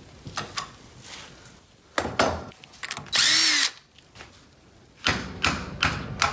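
Metal tool clinks and knocks around a connecting rod held in a rod vise, with a short whir from a handheld power driver about three seconds in, its pitch rising and then falling as it spins up and stops. More clatter follows near the end.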